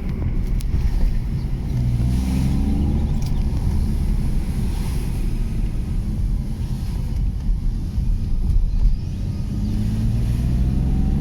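BMW E46 325Ci's inline-six engine pulling the car along the road, with a steady low rumble. The engine note rises under acceleration about two seconds in and again near the end. The engine has a newly fitted short-ram intake, but no distinct intake sound stands out.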